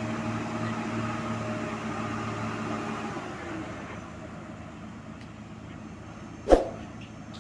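Heavy diesel engine running steadily, then fading down about three seconds in. A single sharp clank near the end.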